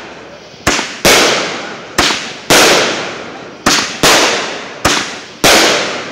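Aerial fireworks going off in quick succession: about eight sharp bangs at uneven gaps of half a second to a second, each trailing off in a fading rumble before the next.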